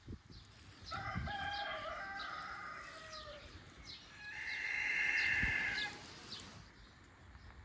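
Rooster crowing twice: a long crow about a second in, then a louder, higher crow near the middle.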